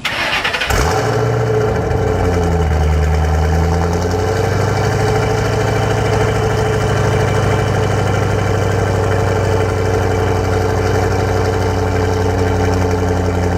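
2005 Ford Mustang GT's 4.6-litre V8, fitted with aftermarket cams and stock mufflers, starting up; the revs flare and settle over the first few seconds, then it idles steadily through the exhaust.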